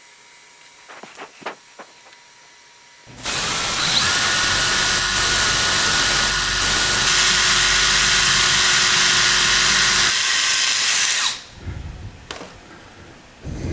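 Electric drill running steadily for about eight seconds, starting a few seconds in and stopping suddenly near the end, after a few light clicks.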